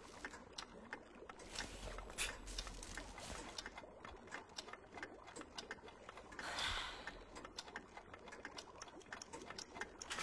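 Quiet room with faint scattered ticks and small rustles. A soft hiss swells briefly about two-thirds of the way through.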